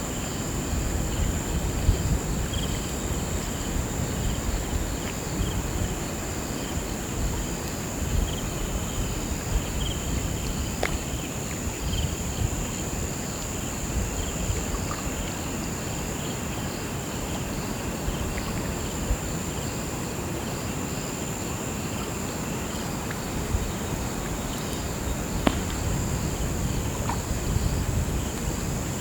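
Crickets chirping without a break in a continuous high trill, with a quicker row of repeating chirps beneath it. A low, even rush of river water runs under them, with a few faint clicks.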